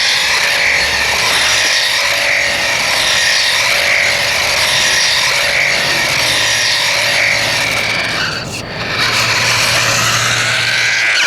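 Electronic sound effect from a RadioShack Sound Bat 2 toy's small speaker: a loud, high warbling tone repeating about every three-quarters of a second. It breaks off briefly near the end, then comes back with a rising sweep.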